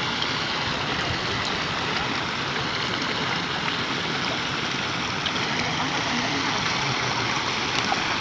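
Shallow water swishing and sloshing steadily around a man wading and sweeping electrofishing probes through it.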